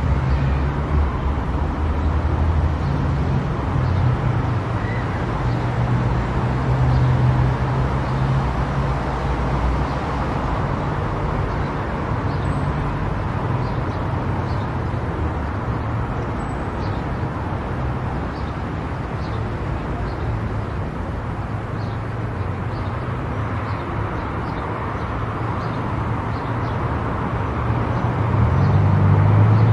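A car driving on a highway: steady tyre and engine noise, with the low engine note rising and getting louder near the end.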